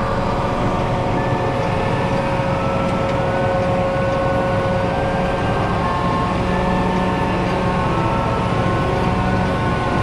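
John Deere 8R tractor's diesel engine running steadily, heard from inside the cab, with a low rumble and a steady mechanical whine that shifts slightly in pitch as the tractor backs slowly toward the implement to hitch it.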